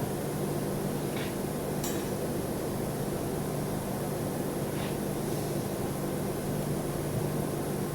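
Welding machine running: a steady electrical hum over a hiss, with a few faint light ticks.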